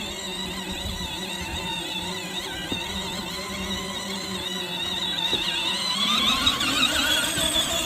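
A 24-volt ride-on electric toy car's motors and gearboxes whine while it drives. The pitch wavers, then rises and grows louder about six seconds in.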